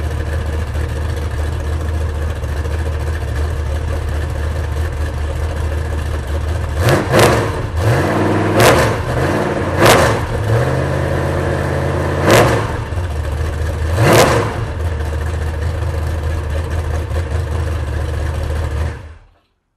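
Rebuilt 1973 Chevrolet 468 cubic-inch big-block V8 idling. From about seven seconds in, it is revved with five quick blips of the throttle on its Holley carburetor, dropping back to idle after each. The sound cuts off near the end.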